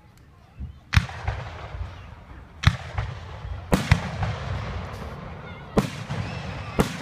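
Aerial firework shells bursting overhead: about six sharp bangs one to two seconds apart, each trailing off in an echo.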